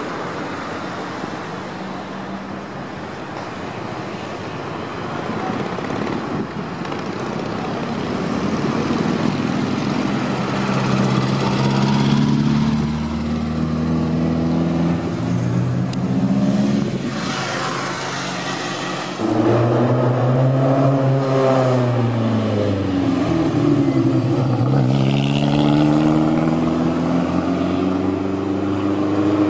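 Street traffic at first, then rally car engines accelerating hard through a roundabout one after another, the pitch climbing as each revs out and dropping at gear changes.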